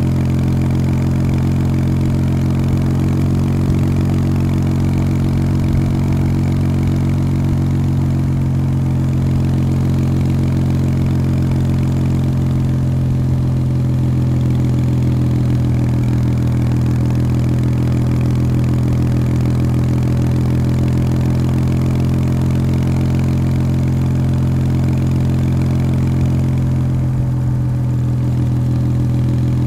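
Kawasaki W800's air-cooled 773 cc parallel-twin engine through its stock exhaust, pulling steadily at an even engine speed while riding, with a brief dip near the end.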